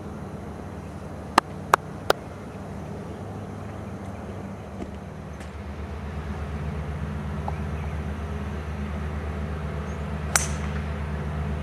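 Golf club striking a ball off the tee about ten seconds in: one sharp crack with a bright ringing tail. Three loud, sharp clicks come close together about a second and a half in, over a steady low outdoor rumble.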